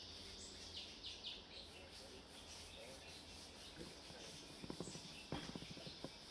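Faint background ambience with a steady high hiss and a few faint bird-like chirps. Near the end come several light clicks as a steel tape measure is handled and pulled out across the bench.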